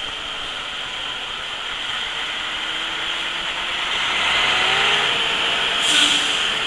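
Road noise inside a moving truck's cab on a wet highway: a steady tyre hiss with a low engine hum, swelling about four seconds in as another truck draws close alongside, with a brief louder rush about six seconds in.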